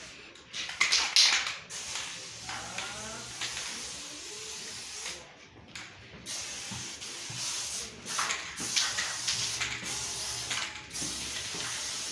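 Aerosol spray paint can hissing in repeated bursts as a graffiti tag is sprayed onto a wall, with short pauses between strokes. The loudest burst comes about a second in.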